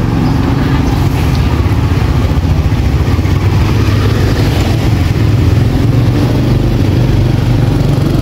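A small engine running steadily with a low, even drone, without revving up or down.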